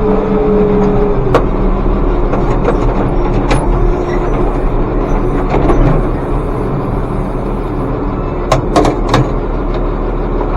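Farm tractor engine running steadily under way, a steady droning hum with a whine that dips slightly in the first second or so. Sharp clicks and rattles come and go, several together near the end.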